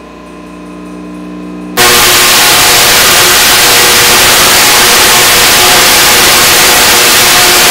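Project Gemini bipolar spark-gap Tesla coil firing: a steady low hum, then about two seconds in the arcs strike with a sudden, very loud, continuous buzzing crackle that holds steady.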